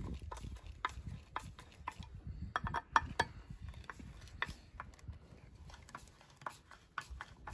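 Hand screwdriver turning a small screw through a metal horseshoe into a wooden board: irregular small clicks and scrapes of the screwdriver tip in the screw head, with a few louder clicks about three seconds in.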